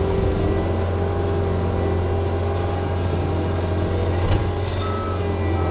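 John Deere 335P skid steer's diesel engine running steadily, a constant low drone while working the driveway with the power rake.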